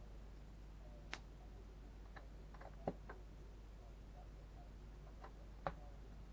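Plastic Lego bricks clicking and tapping as they are handled and pressed onto the model: a few scattered sharp clicks, the two loudest about three seconds in and near the end, over a faint low steady hum.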